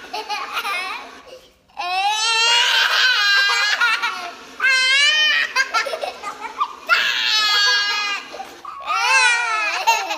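Two young children laughing hard in long, high-pitched peals, four or five in a row with short breaks between them.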